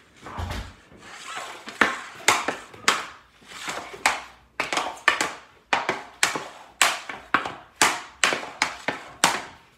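Hockey stick blade and puck clacking on a plastic shooting pad as the puck is stickhandled back and forth. The sharp clacks come faster as it goes, about two to three a second, each dying away quickly.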